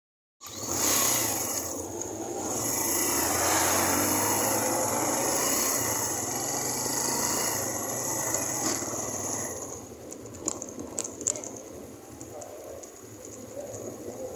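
Suzuki GN125F motorcycle's single-cylinder four-stroke engine running while the bike rides along a street, a steady dense noise that gets clearly quieter about ten seconds in, with a couple of sharp clicks soon after.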